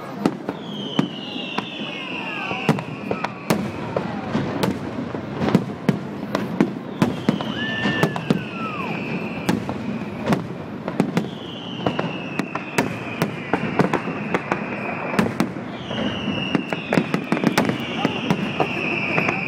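Aerial fireworks display: a quick, irregular run of bangs and pops from shells bursting overhead. Several high whistles slide down in pitch over a second or two each.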